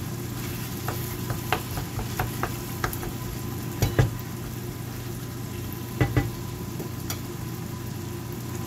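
Nearly cooked chicken curry sizzling in a non-stick frying pan while a wooden spatula stirs it. The spatula scrapes and knocks against the pan again and again. The loudest knocks come about four seconds in and again around six seconds.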